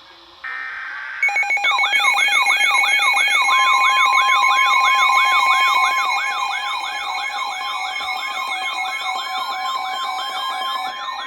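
Electronic alert siren on broadcast audio, starting about a second in. It sweeps up and down in pitch several times a second over steady alert tones, heralding an emergency warning.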